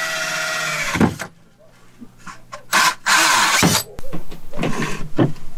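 Cordless drill with a hole saw cutting through a primed shiplap board, its motor giving a steady whine that winds down about a second in and ends with a knock. After that come scattered handling knocks and two short louder rushes of noise near the middle.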